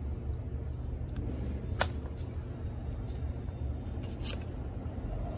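Light clicks and taps of metal and plastic as a chainsaw carburetor is worked off its mounting studs and unhooked from the throttle linkage, the sharpest click about two seconds in. A steady low background hum runs underneath.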